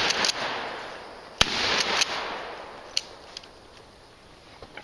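Gunshots from a competitor's firearm: a few shots in the first two seconds, each trailed by a long rolling echo, then a sharper, quieter crack about three seconds in before it falls quiet.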